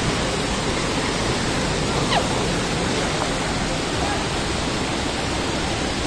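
Mailung waterfall's white water cascading over boulders: a steady, loud rushing of water.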